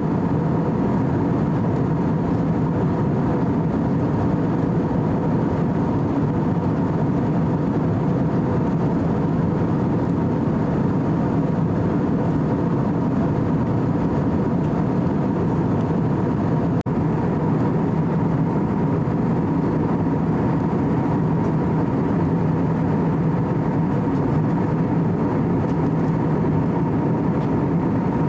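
Steady in-flight cabin noise of an Airbus A321-200 airliner, heard from a window seat: engine and airflow noise with a few steady hums. It drops out for a split second about two-thirds of the way through.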